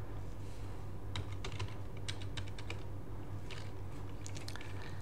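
Computer keyboard keystrokes, irregular clicks singly and in small clusters, as a password is typed at a terminal login prompt, over a low steady hum.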